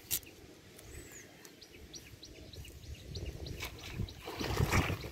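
Outdoor ambience with a steady run of short, high chirps, about three or four a second. There is a sharp click right at the start and a brief scuffing rustle a little past four seconds in.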